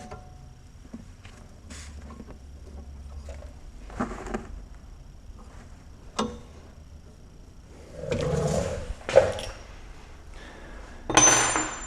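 Scattered clinks and knocks of metal hand tools while a wrench is fitted to a sway bar end link nut that spins, with a longer scraping, rustling burst about eight seconds in and another near the end.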